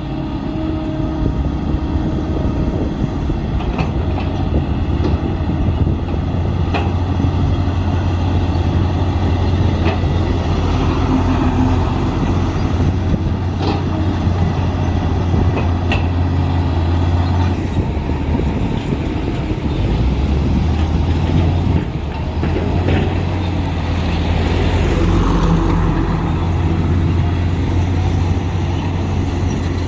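Komatsu D53P crawler bulldozer's diesel engine running steadily under load, with scattered clanks from the machine at work.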